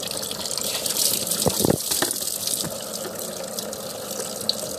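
Steady rush of rain and water splashing down on a person bathing in it, with a couple of brief knocks about a second and a half in.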